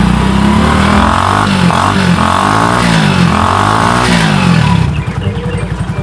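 Small Honda motorcycle engine revved up and down about three times, then settling back to an even idle about five seconds in.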